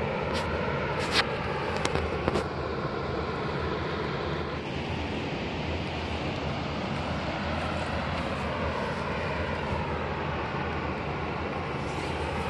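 Steady low rumble of outdoor background noise, with a few sharp clicks in the first couple of seconds.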